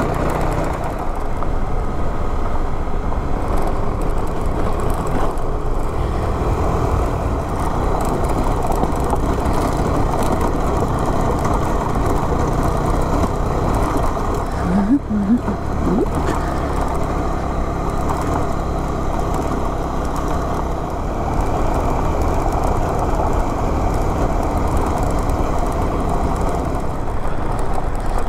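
Motorcycle engine running steadily under way, with wind rush on the rider's camera microphone; a brief rise and fall in pitch about halfway through.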